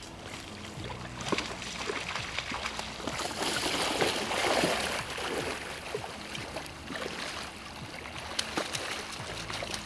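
Running river water, with a hooked steelhead splashing and thrashing at the surface, loudest about four seconds in, over scattered sharp little splashes.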